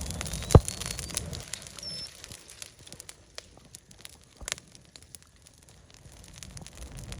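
Campfire crackling: scattered small ticks and snaps, with one loud sharp pop about half a second in.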